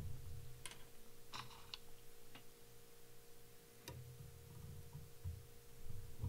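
Faint, scattered small clicks and handling noise from a double salmon hook being fitted into the metal jaws of a fly-tying vise.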